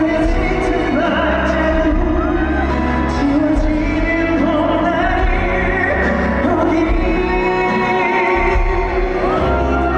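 Live K-pop vocal-group performance: a male voice singing sustained, wavering notes over a band with a deep, steady bass.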